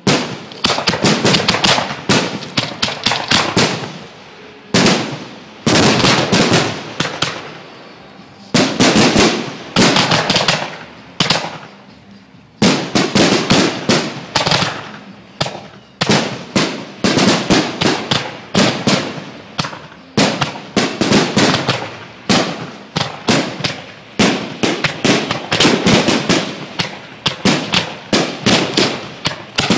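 Fireworks display: rapid volleys of sharp bangs and crackles, several a second, with short lulls between volleys.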